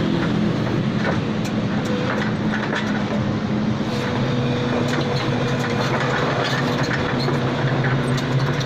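Excavator's diesel engine running steadily, with scattered metallic clicks and clanks over it.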